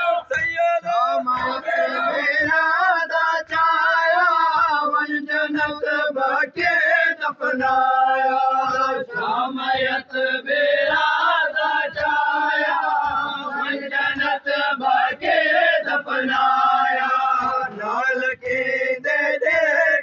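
Men chanting a noha, a Shia mourning lament, in a steady sung melody. Regular chest-beating slaps of matam keep time, roughly one a second.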